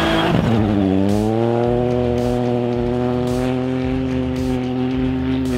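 Ford Fiesta R2T rally car's turbocharged three-cylinder engine running at high revs as the car passes close by and pulls away. The pitch dips as it goes past, then climbs a little and holds high and steady.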